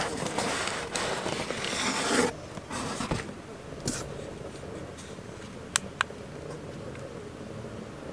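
Cardboard packaging scraping and rubbing as a product box is slid out of a shipping carton, loudest for the first two seconds, followed by quieter handling with two sharp clicks close together about six seconds in.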